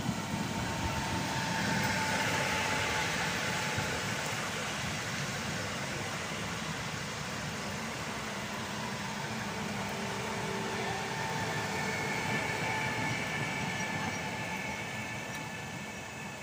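Koleje Dolnośląskie class 48WE electric multiple unit rolling along the platform: steady rolling rumble of the wheels with a faint high whine, loudest about two seconds in and then slowly easing off.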